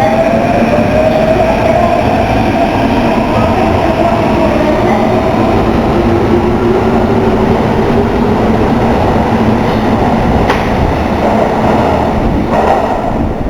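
Kintetsu 7020 series electric train running out of a subway station: a steady rumble with the traction motors' whine gliding slowly upward in pitch, and a couple of sharp wheel clacks near the end as the sound starts to fade.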